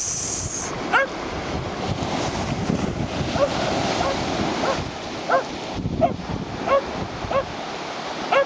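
Shetland Sheepdog barking in short, high barks, about nine times at uneven intervals, over the steady wash of surf breaking on the beach and wind on the microphone.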